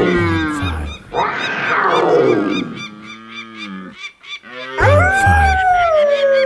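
Recorded wild-animal calls: a loud rough roar that falls in pitch, a few quieter short calls, then a long pitched call near the end that slides downward and is held.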